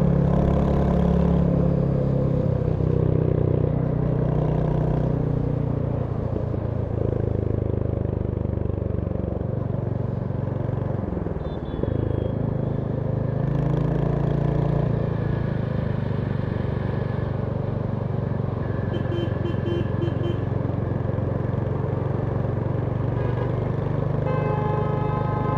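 Royal Enfield Hunter 350's single-cylinder engine running steadily while riding, with a brief dip in engine sound about eleven seconds in as the throttle eases. Short pitched tones, like horns, sound about nineteen seconds in and again near the end.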